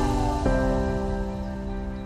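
Background music: soft, sustained electronic chords, with a falling sweep that ends just after the start and a new chord about half a second in.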